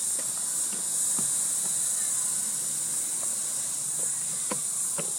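A chorus of insects making a steady, high-pitched hiss, with a few faint taps near the end.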